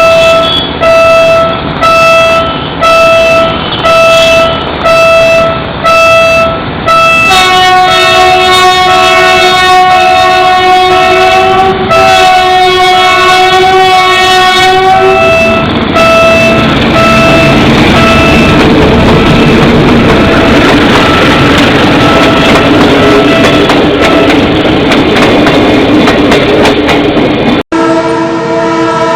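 Philippine National Railways diesel train horn: about eight short blasts on one pitch, roughly one a second, then a long blast on a multi-note chord horn held for about eight seconds with a brief break in it. The horn then gives way to the loud, steady rumble and noise of the running train. A sudden cut near the end brings in another chord horn.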